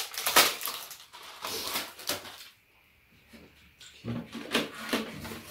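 Crinkly rustling of a plastic seasoned-laver (gim) packet being handled and opened, for about two and a half seconds. After a short lull come scattered clicks of eating utensils and a short low voice sound about four seconds in.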